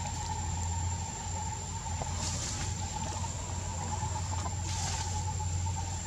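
Forest ambience: insects trilling steadily at a constant high pitch over a low steady hum, with two brief rustles about two and five seconds in.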